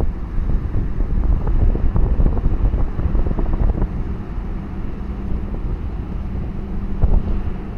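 Wind buffeting the microphone over a deep, uneven rumble, with scattered short splash-like ticks.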